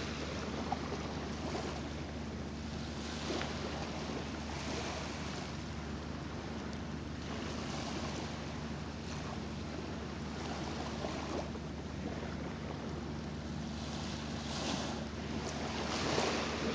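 Small lagoon waves lapping and washing on a sandy beach, the wash swelling and fading every few seconds, over a steady low hum.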